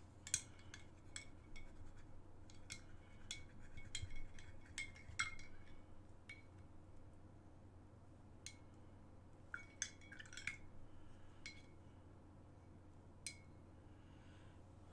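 Paintbrush clinking against a glass rinse cup: a quick run of light taps, each with a short ring, for the first six seconds or so, then a few scattered single clinks.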